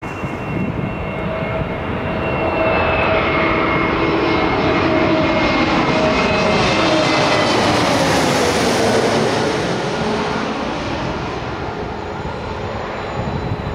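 Airbus A320-family twin-jet airliner on landing approach passing low overhead, its engine whine and rumble building to a peak as it goes over, then dropping in pitch and easing off as it heads away toward the runway.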